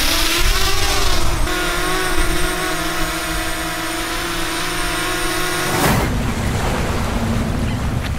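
DJI Mavic Mini's four small propellers spinning up for takeoff with a rising whine, then a steady buzz of several wavering tones as the drone hovers close by. The buzz cuts off suddenly about six seconds in, leaving a steady wash of noise.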